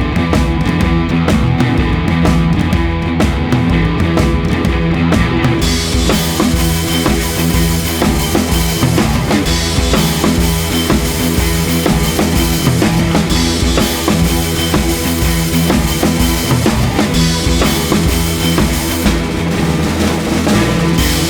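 Rock music with guitar and a full drum kit keeping a steady beat; the drums come in fuller about six seconds in.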